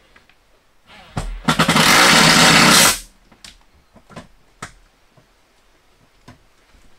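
A power driver runs a screw in for about a second and a half, fastening a breaker panel to its backboard. A few short knocks and clicks of handling follow.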